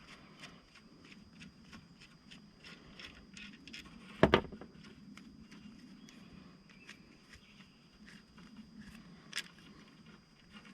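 Hand cable-swaging crimper being worked on an aluminum ferrule on rigging wire: light metallic clicks and handling, with one sharp, loud clack about four seconds in and a smaller one near the end.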